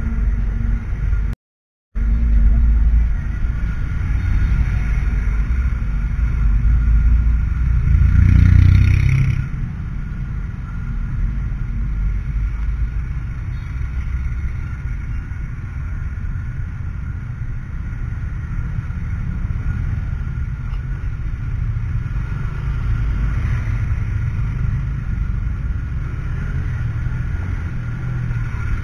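Low, steady rumble of a motorcycle ridden slowly through city traffic, picked up by a helmet-mounted camera. It swells louder for a second or two about eight seconds in. The sound cuts out completely for about half a second a little over a second in.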